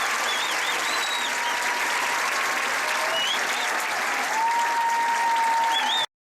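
Stadium crowd applauding and cheering, with scattered whistles cutting through. The sound cuts off abruptly about six seconds in.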